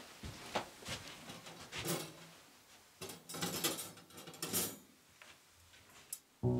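Scattered small clicks, taps and brief rustles of hands handling craft materials and tools. Music starts right at the end.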